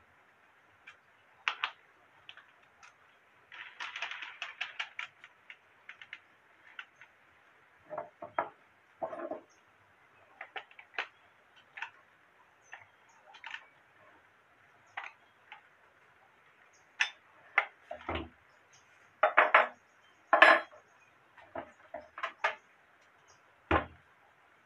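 Irregular metal clicks and clinks as an angle grinder is handled by hand with its motor off: a spanner on the spindle flange and the accessory being changed for a sanding pad. There are a few duller knocks, the loudest of them about 18 s in and near the end, as the grinder is set down on a wooden board.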